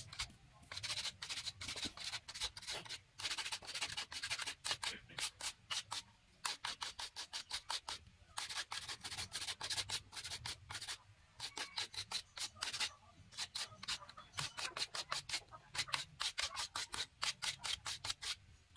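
Hand filing of a small carved wooden part with a flat metal file: quick back-and-forth scraping strokes, several a second, in runs broken by short pauses.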